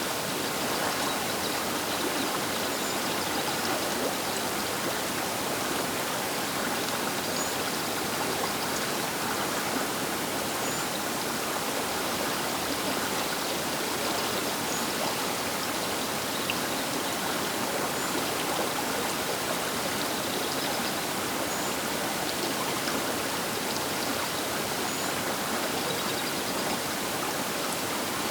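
The Baker River flowing past its bank: a steady, unbroken wash of rushing water.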